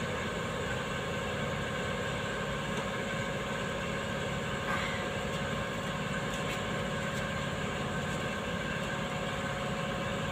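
Steady mechanical hum of workshop machinery, even and unchanging, with a few faint taps of tools on metal around the middle.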